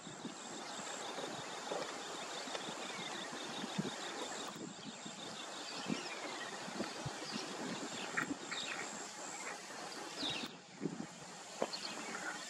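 Steady rushing outdoor noise, like wind, with small birds chirping and whistling over it. A rapid even trill runs through the first few seconds.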